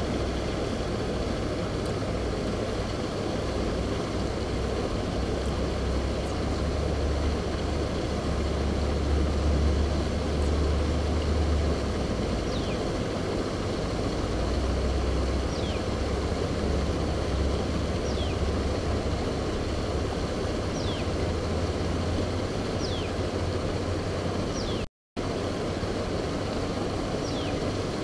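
Wind buffeting an action camera's microphone, a steady low rumble that swells and eases, with short high falling chirps about every two seconds. The sound cuts out briefly near the end.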